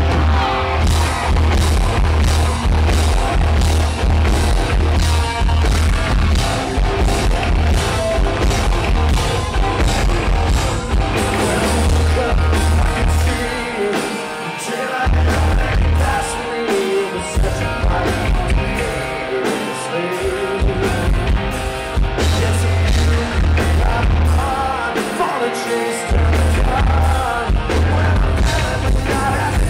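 Live rock band with electric guitars, bass and drums, a male lead singer singing over it, heard from within the audience. The heavy low end drops out briefly several times in the second half.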